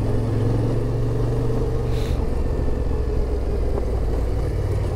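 Yamaha Ténéré 700's parallel-twin engine running steadily while the motorcycle is ridden, its note dipping slightly about two seconds in.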